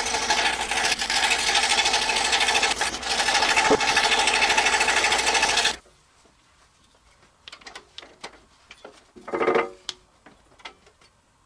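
Scroll saw running with a number two blade cutting hardboard, a steady fast reciprocating buzz; it cuts off suddenly a little over halfway through, leaving only faint clicks and taps of handling.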